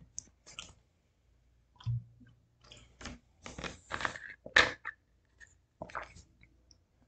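A man's quiet breaths and mouth noises close to the microphone, in short scattered bursts, with a soft low thump about two seconds in.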